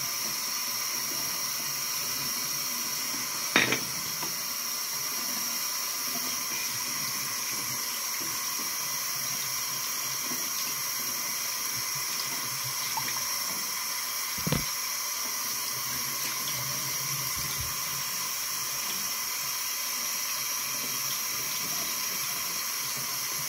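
Bathroom faucet running steadily into the sink while hands are rinsed under the stream, with two brief knocks, one a few seconds in and another past the middle.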